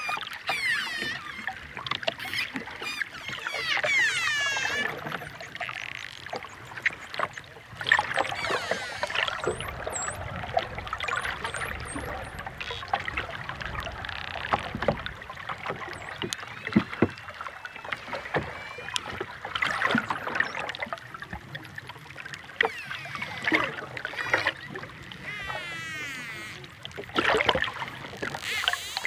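Dolphins calling underwater: many rising and falling whistles, some in overlapping rows, mixed with rapid clicks and buzzing click trains over the hiss of the sea.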